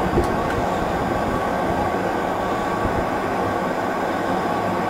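Steady rumble of simulated jet engines and airflow from a Boeing 737 flight simulator at climb power just after takeoff, with one light click near the start.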